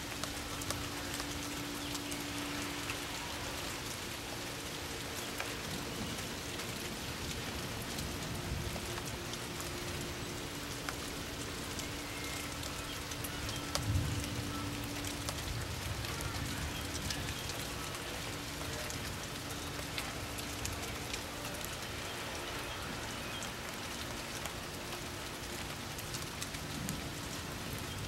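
Steady rain falling, a constant hiss with many small drop ticks. A brief low thump comes about halfway through.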